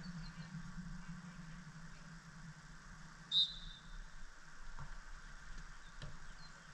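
A referee's whistle gives one short blast a little over three seconds in, over a steady low hum.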